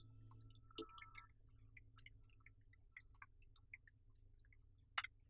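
Computer keyboard being typed on: faint, irregular key clicks, a few a second, with one sharper click near the end.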